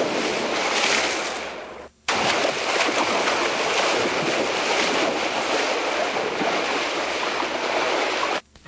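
A steady, loud rushing noise like surf or churning water, with no music or voice in it. It cuts out abruptly for a moment about two seconds in and again near the end.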